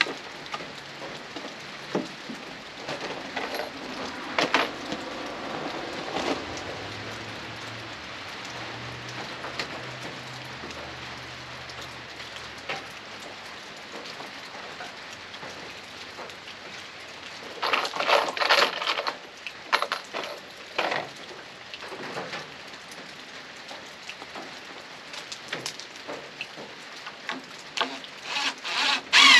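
Steady rain pattering on surfaces, with scattered sharp knocks and clatters, a cluster of them about two-thirds of the way through.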